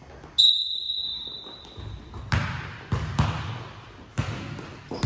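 Basketballs bouncing on a hardwood gym floor, five separate thuds in the second half. About half a second in, a sharp metallic clang that rings at one high pitch for nearly two seconds as it fades, the loudest sound.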